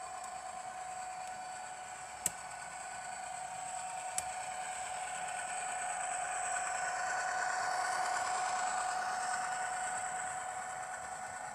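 Model Coaster commuter train of bilevel passenger cars running past on model track, its running noise swelling as the cars go by and easing off near the end, over a steady high whine. Two sharp clicks come about two and four seconds in.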